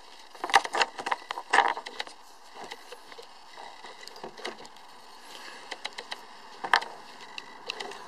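Handling noise of a camera being set in place and adjusted: scattered clicks, knocks and rustles, loudest in a cluster about half a second to two seconds in and a single sharp knock near seven seconds in.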